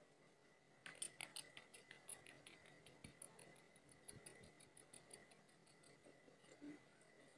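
Faint marker-on-whiteboard drawing sound effect: a run of quick, soft scratchy ticks, several a second, starting about a second in and thinning out by about five seconds, over a faint steady high whine.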